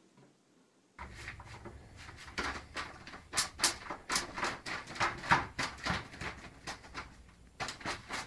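Mail being pushed through a door letterbox while a cat paws and swats at it: a quick, irregular run of sharp paper rustles and clacks of the letterbox, several a second.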